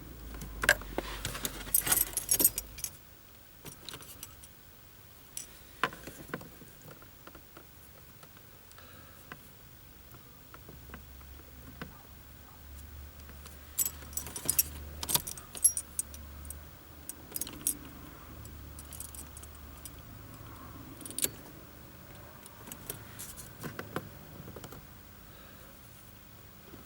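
Car keys jingling on their key ring in several short bursts of metallic clinks and clicks, as the ignition key is handled.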